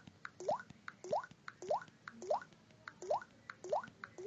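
Screen reader sound-effect earcon on an Android phone: a short rising water-drop 'bloop' repeated at an even pace, about every 0.6 s, each with a faint tick just before it.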